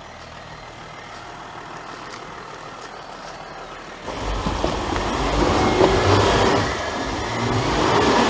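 VW Touareg running with a quiet, steady low hum, then about four seconds in a much louder rough rumble and rushing noise as it drives over the muddy track.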